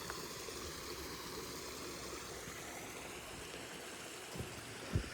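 Steady rush of a stream flowing over rocks, with two soft thumps near the end.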